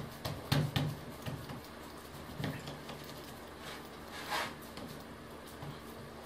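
Hands pressing and patting a block of margarine worked with flour on a floured worktop: several soft pats and knocks, most of them in the first second, over a steady low hum.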